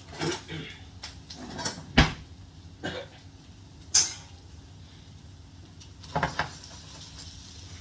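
Kitchen clatter: a string of sharp knocks and clicks of kitchenware, the loudest about two seconds in and again at four seconds, with a quick double knock near the end.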